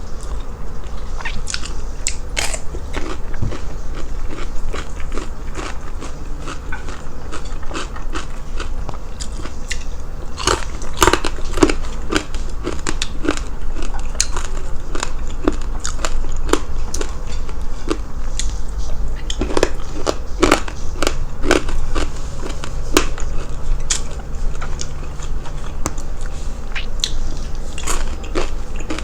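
Close-up biting and chewing of crispy fried pork: a string of sharp, crackly crunches as the crisp skin and fat are bitten and chewed, with two runs of louder, denser crunching, about a third of the way in and again past two-thirds.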